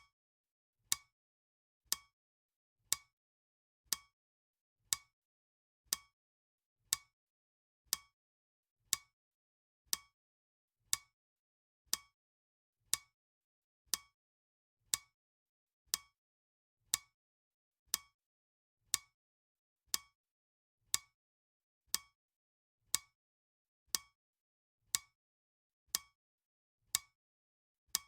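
Clock ticking sound effect: one sharp tick every second, evenly spaced, with silence between the ticks.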